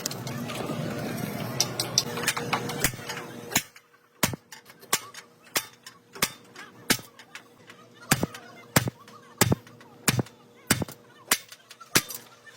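A noisy clatter for the first three and a half seconds, then a steady series of sharp knocks, roughly one every two-thirds of a second, over a faint steady hum.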